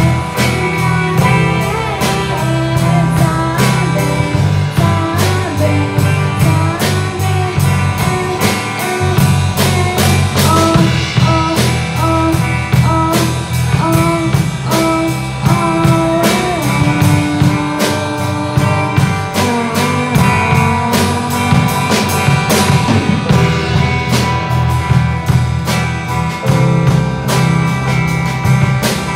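Live student rock band playing a song: electric guitar, electric bass and electronic keyboard over a steady drum-kit beat.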